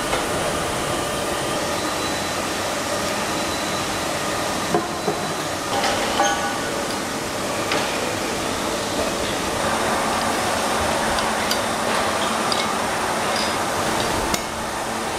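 Steady machinery noise on a crankshaft grinding and polishing line, with scattered sharp metallic clinks and knocks. The machine sound changes abruptly several times.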